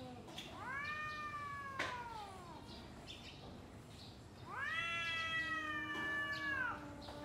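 Two cats yowling at each other in a standoff before a fight: two long, drawn-out yowls, each rising at the start and sliding down at the end, the second higher and louder. Under the second, a lower steady moan from the other voice.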